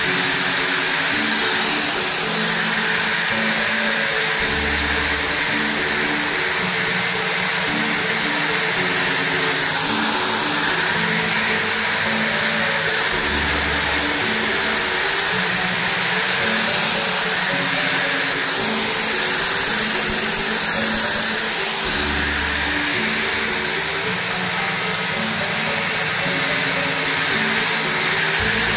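Electric angle grinder running steadily with a high whine, its sanding disc grinding rust off a steel knife blade.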